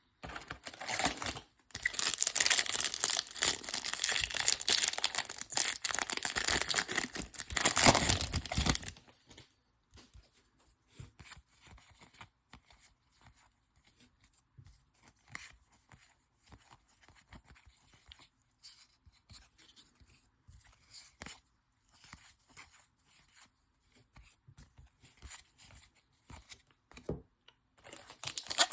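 Wrapper of a 2021 Topps Series 2 baseball card pack being torn open and crinkled for about eight seconds, followed by faint scattered rustles and light clicks of cards being handled.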